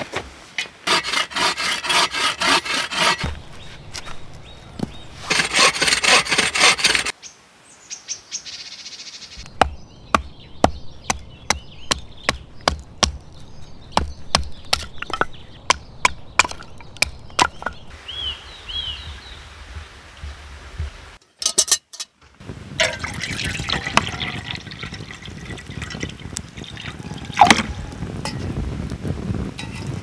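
Wood being split by batoning a knife through it on a chopping block: a steady run of sharp wooden knocks, about two a second. Before that come two stretches of fast rasping strokes on wood.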